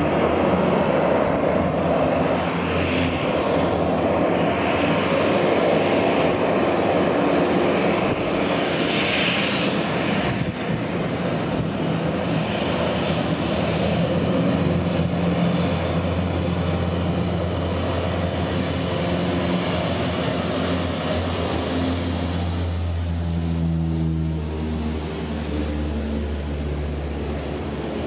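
Propeller engines of amphibious firefighting planes droning steadily as the planes skim the sea surface to scoop water, with a high whine setting in about a third of the way through.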